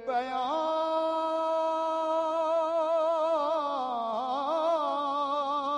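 A man's voice singing a naat unaccompanied, holding one long wavering note and then winding it through quick melodic turns toward the end.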